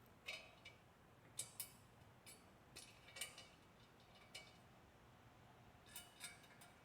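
Faint, scattered clinks and clicks of small metal hardware or hand tools being handled, about ten light taps spread unevenly over the stretch.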